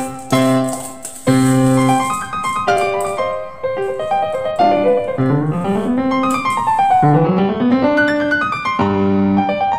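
Background music played on a piano-like keyboard, with a few notes sliding upward in pitch about halfway through.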